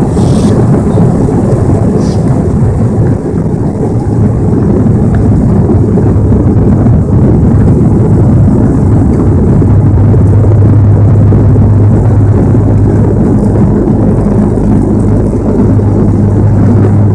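Turboprop airliner (SpiceJet Bombardier Q400) with engines and propellers at takeoff power: a loud, continuous rushing noise with a low propeller drone. The drone becomes stronger about ten seconds in, and a second, higher steady tone joins it a few seconds later.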